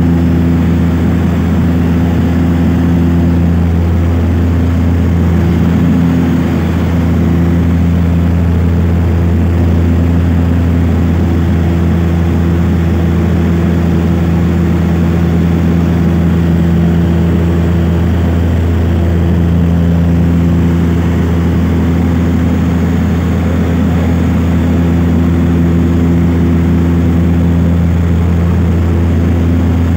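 Cabin noise of a propeller airliner in flight: a loud, steady drone of the engines and propellers, a low hum with several steady tones above it.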